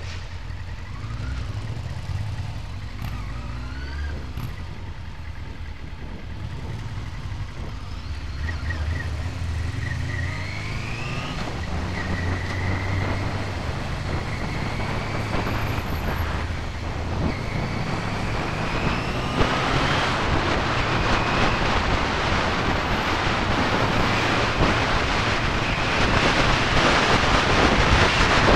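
1999 Yamaha YZF-R6's inline-four engine under way, its pitch rising again and again with breaks between: accelerating through the gears. Wind noise on the microphone builds from about two-thirds of the way in as speed rises.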